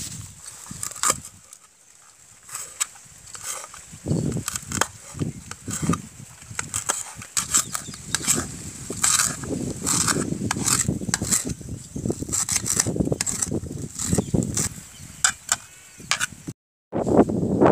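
Knife chopping green chillies and curry leaves on a steel plate: quick, irregular taps of the blade against the metal. The sound cuts out briefly near the end.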